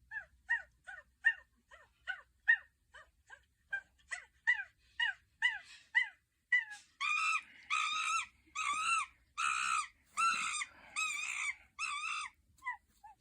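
Animal calls: a quick series of short falling chirps, about three a second, then a run of longer, louder arched calls, about two a second, from about seven seconds in.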